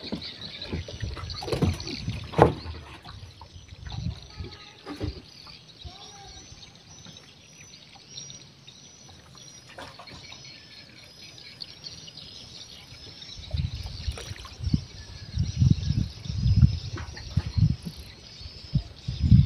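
Scattered knocks and handling sounds on a small fishing boat over a steady high hiss. In the last several seconds comes a run of uneven low thuds and rumbling.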